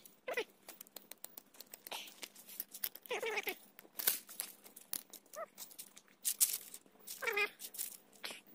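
An unseen animal calls four times in short, wavering calls that bend down in pitch; these are the loudest sound. Between them dry leaves crackle and tick as a small fire is lit in them.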